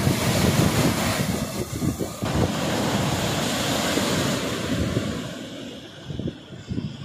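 Surf breaking and washing up the beach, with wind buffeting the microphone in gusts; the hiss of the wash fades over the last two seconds or so.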